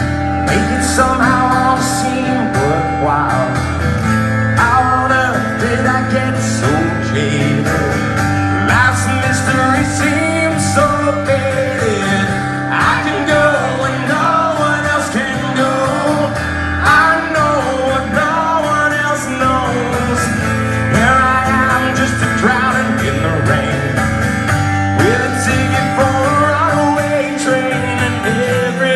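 Live acoustic rock performance: a man singing over a strummed acoustic guitar, heard through the venue's stage amplification.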